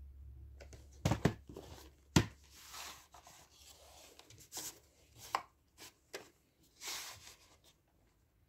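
A VHS tape and its case being handled: a quick double knock of plastic just after a second in, a sharper loud knock at about two seconds, then softer scraping, rustling and small clicks that die away near the end.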